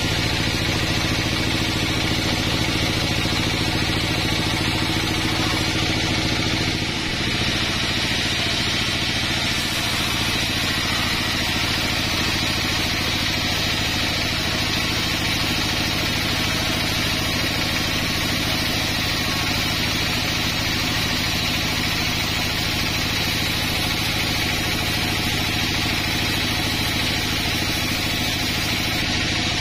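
Sawmill band saw running steadily as its blade rips lengthwise through a thick pine plank: a continuous low mechanical drone with the noise of the cut over it.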